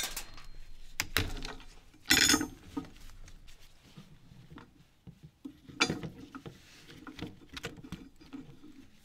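Hand disassembly of a plastic string trimmer: scattered clicks, taps and short rattles of plastic housing parts and screws being handled, with a louder rattle about two seconds in.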